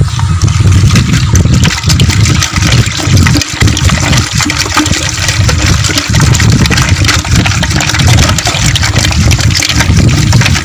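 A wooden churning stick spun back and forth between the palms in a clay pot of aloe vera sharbat with ice, sloshing the liquid and clicking the ice, over a steady low rumble.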